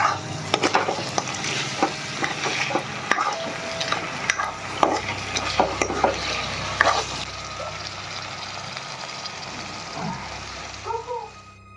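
Food frying and sizzling in a pan while it is stirred, with sharp clinks and scrapes of the utensil against the pan. The clinks are frequent for about the first seven seconds, then thin out as the sizzle softens.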